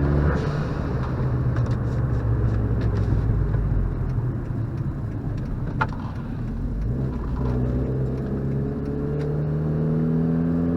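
Dodge Caliber SRT-4's turbocharged 2.4-litre four-cylinder pulling hard under acceleration. About six seconds in there is a brief dip and a sharp click, then the revs climb steadily again.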